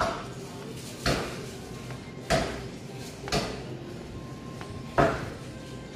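Footsteps on a hard tiled floor: five sharp steps about a second apart, with a longer pause before the last, over a steady low background hum.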